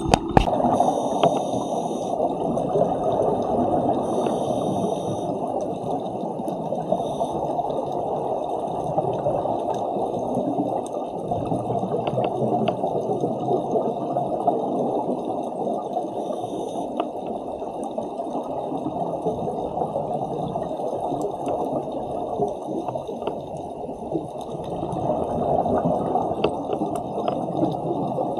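Muffled underwater sound picked up through a camera's dive housing: a continuous rush of water and scuba divers' exhaled bubbles, swelling louder near the end.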